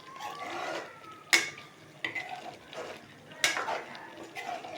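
Metal spoon stirring and scraping in a metal cooking pot, with sharp clinks against the pot, the loudest about a second in and again past the three-second mark.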